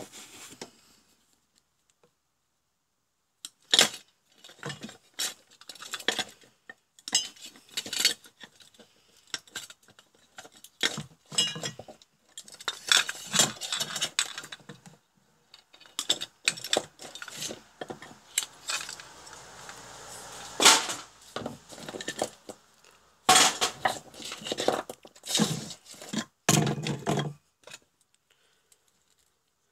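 Metal parts being handled on a workbench: an aluminium housing, screws and tools. Irregular clinks, clatters and knocks start a few seconds in and stop shortly before the end.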